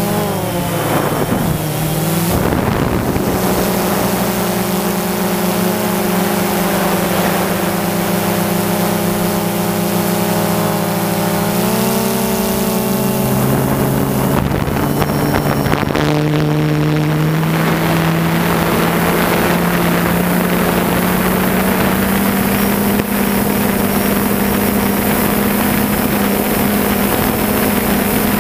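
Motors and propellers of the aircraft carrying the camera, a steady buzzing hum with several close pitches. It drops in pitch about a second in, steps up around twelve seconds, and slowly rises over the last ten seconds.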